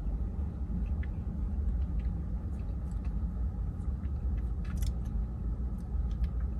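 A person quietly eating a spoonful of soft-serve ice cream: faint chewing and small spoon clicks over a steady low background rumble.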